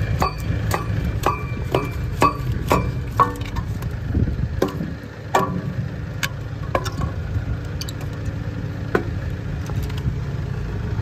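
Metal striking metal: ringing clangs about two a second for the first three seconds or so, then a few scattered ones, over a tractor engine running at idle. The strikes come as a jam is being knocked loose from a seed drill.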